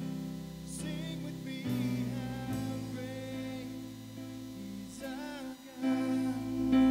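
A man singing a slow song while playing held chords on a Korg Kross synthesizer keyboard, the chords changing every second or so.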